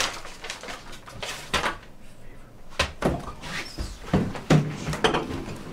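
Stifled scratching from inside a small freezer, a run of short scrapes, followed from about halfway by several knocks and thumps on the freezer cabinet.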